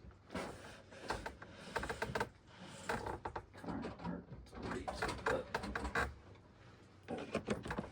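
Repeated clicks, knocks and rattles of a Simplex T-bar manual fire alarm pull station being handled and worked after a pull went wrong.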